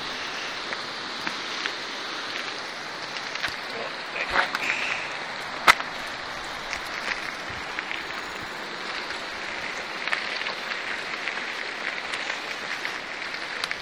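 Mountain bike rolling fast down a dirt track: a steady crackle and rattle of tyres on loose grit and the bike shaking over the bumps, with scattered clicks and one sharp knock about six seconds in.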